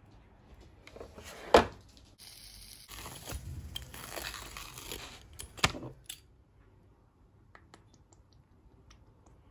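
A sharp knock, then a few seconds of crunchy scraping as a pizza-cutter wheel rolls through toasted sandwich bread against a plate, with a second knock near the end of the cutting. A few faint ticks follow.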